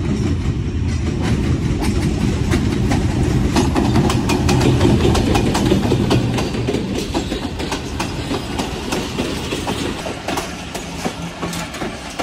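Pakistan Railways passenger train passing close by: the diesel locomotive's rumble grows loudest about halfway through as it goes past, then the coaches' wheels clatter rhythmically over the rail joints, fading toward the end.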